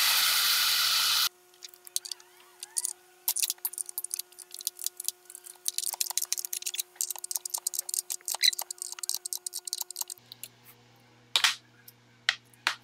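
A pneumatic air ratchet running briefly at first, then a long run of quick metal clicks and clinks as a ratchet and wrench work a two-arm puller on the crankshaft nose of a BMW R90/6 boxer engine, drawing off the timing-chain sprocket and nose bearing. A few separate metal knocks come near the end.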